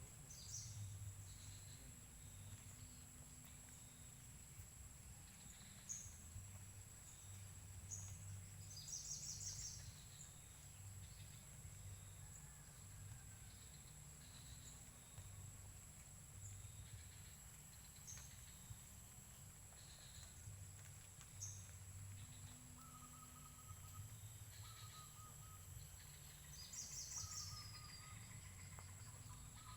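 Faint outdoor ambience: a steady high insect drone with scattered bird chirps, including a brief chirping trill about nine seconds in and another near the end, over a low rumble.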